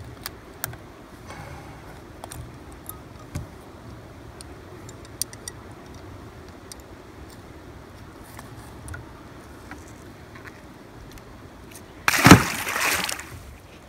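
Faint clicks of a hook being worked out of a small catfish's mouth, then the catfish is thrown back and hits the river with one loud splash about twelve seconds in.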